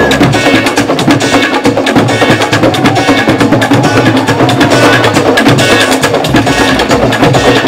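A street drum group playing a fast, busy rhythm with sticks: dense rapid strokes with a hard, woodblock-like click on top.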